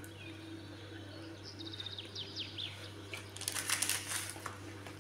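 Birds chirping: a quick run of falling chirps a couple of seconds in, then a brief cluster of sharp, louder calls, over a steady low hum.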